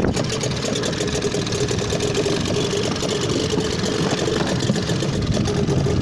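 Vintage British Seagull two-stroke outboard motor just started and running on a dinghy, with a fast, uneven run of firing knocks. It is running cold and rough, with the backfiring the owner complains of.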